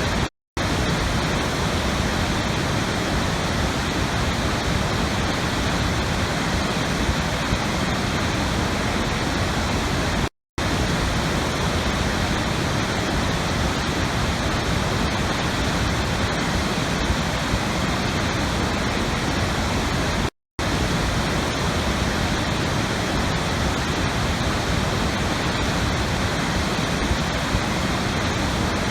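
Steady rushing water, an even noise with no change in pitch or strength. Two brief silent gaps, about ten seconds apart, cut into it: one right at the start and one near the middle.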